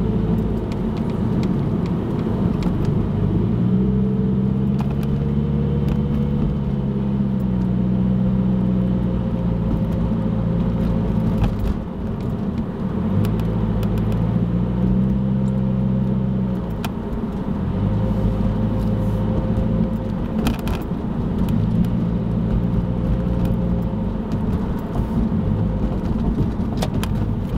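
A car driving along a road, heard from inside the cabin: a low engine hum that shifts in pitch every few seconds over a constant rush of tyre and road noise.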